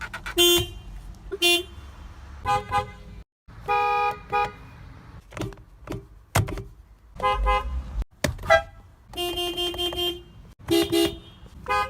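Horns of several different Toyota cars honked one after another: about a dozen toots at differing pitches, mostly short taps with a few held for close to a second.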